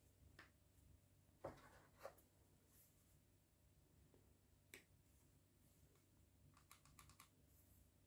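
Faint clicks and knocks from an Action Army AAP-01 airsoft pistol being handled in gloved hands: two soft knocks about a second and a half and two seconds in, a sharp click just under five seconds in, and a quick run of small clicks about seven seconds in.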